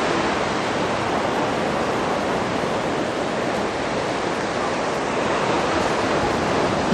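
Surf washing onto the beach: a steady, even rush of waves.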